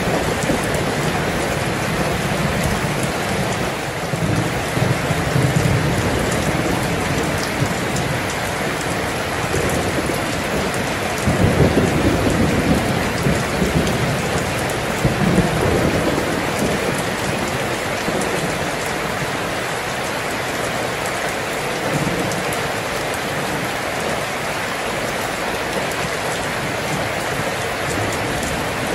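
Steady rain with low rolls of thunder rumbling in several times; the loudest comes about eleven seconds in, and the last part is mostly rain alone.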